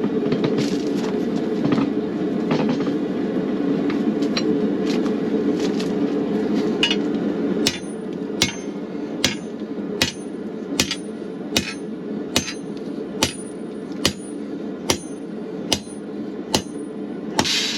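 Hand hammer striking hot steel on an anvil: a few scattered blows at first, then a steady rhythm of about one blow every 0.8 seconds, each with a bright ring. A steady rushing roar runs under the first blows and cuts off about halfway through.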